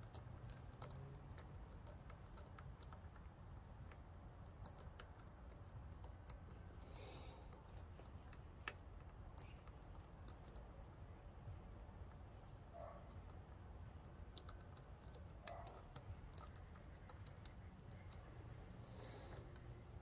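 Faint, small metallic clicks and ticks of a lock pick working the pins of a Van Lock seven-pin push-style padlock, coming in scattered clusters.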